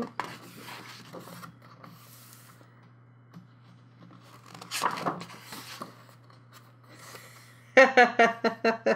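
Thick paper pages of a coloring book being turned by hand: soft rustling and sliding of paper, with a louder page flip about five seconds in.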